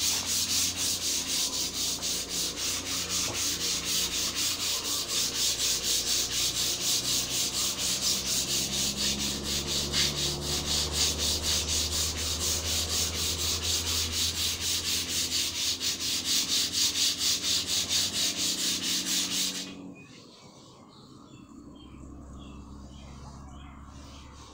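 Sandpaper rubbing back and forth on a long white block in quick, even strokes, stopping abruptly near the end.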